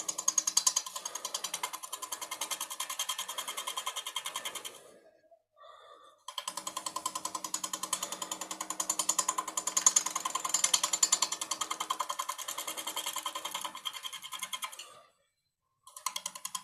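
Turning tool cutting a spinning natural-edge cedar bowl blank on a lathe, making a rapid, even clatter as the cut meets wood and gap in turn on each revolution, over the lathe's steady hum. The sound drops out twice, briefly.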